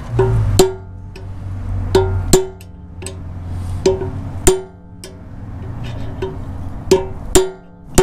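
Hammer striking a steel punch, about ten sharp metallic strikes at uneven intervals, each with a short ring. This is the staking of the edge of the hub's lock ring into the relief cut in the hub body, which locks the 203 ft-lb lock nut so it cannot back off.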